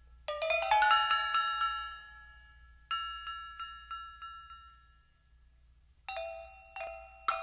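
Background music of bright, ringing struck notes: a quick run of notes, a chord that dies away to near silence, then a few more notes near the end.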